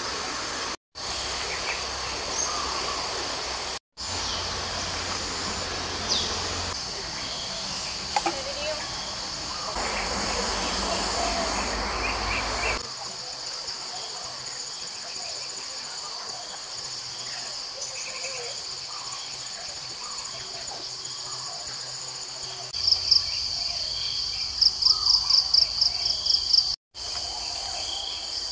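Steady chorus of insects, crickets or cicadas, shrilling high and constant, with a few faint bird chirps. Near the end a louder pulsing run of about eight sharp chirps, roughly three a second.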